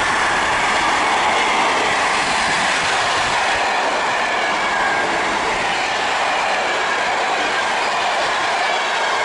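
Container freight train's wagons rolling past at close range: a steady, loud noise of wheels on rails, with a faint high-pitched wheel squeal.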